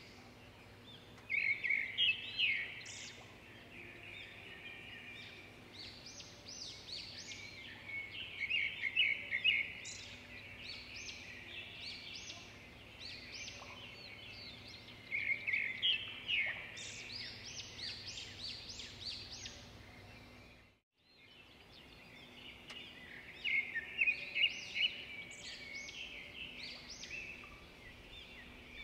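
Songbirds chirping: clusters of rapid, high, short chirps coming and going, broken once by a brief gap about two-thirds of the way through.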